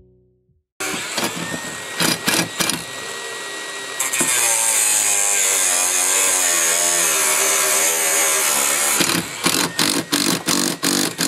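Cordless impact driver driving screws into the cart's plastic tub. It starts about a second in, runs in one long pull of the trigger for several seconds, then gives a string of short trigger bursts near the end.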